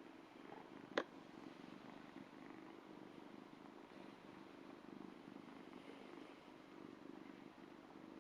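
Ragdoll kitten purring steadily and faintly, with a single sharp click about a second in.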